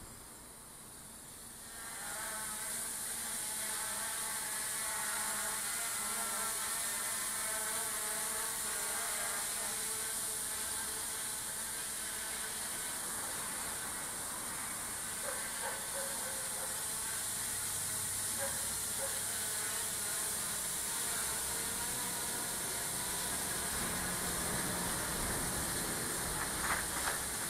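Hubsan H501S quadcopter's motors and propellers starting up about two seconds in, then a steady whine with a high hiss, its pitch wavering slightly.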